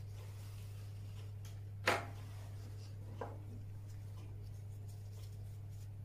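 Steady low hum under light handling of a stainless steel orthodontic wire and tools, with one sharp click about two seconds in and a fainter click about a second later.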